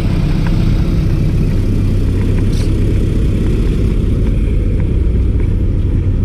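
Steady low rumble of road traffic, with a motor vehicle's engine running close by.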